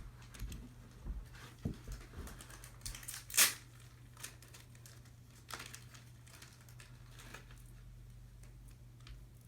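Handling noise from fitting parts to a tower speaker: a run of light knocks and clicks, with one louder, sharp scraping rustle about three and a half seconds in, then a few scattered ticks over a steady low hum.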